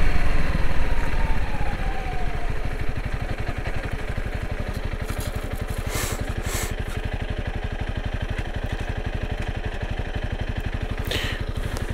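Honda CRF300L Rally's single-cylinder engine slowing as the motorcycle rolls to a stop, its pitch falling over the first couple of seconds, then idling with an even, quick pulse. A few sharp clicks come about six seconds in and again near the end.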